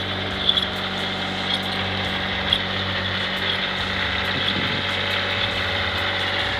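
Engine of heavy road-paving equipment running steadily, with a few sharp ticks in the first few seconds.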